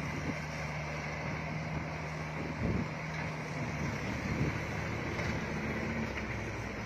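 Dump truck's diesel engine running steadily as the truck moves slowly over soft ground with its bed raised, with a couple of dull thumps partway through.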